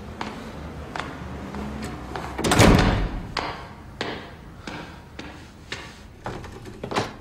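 A heavy wooden front door swinging shut with a loud thud about two and a half seconds in. Lighter sharp knocks follow at about half-second intervals.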